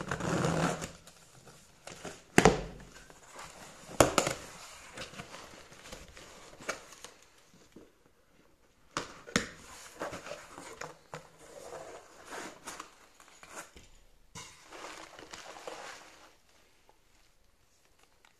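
Cardboard shipping box being opened by hand: packing tape ripped away in a few sharp tears, then the flaps and plastic bubble wrap rustling and crinkling for several seconds.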